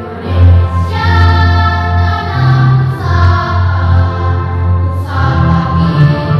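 Children's school choir singing together, holding long notes and moving to a new note about once a second.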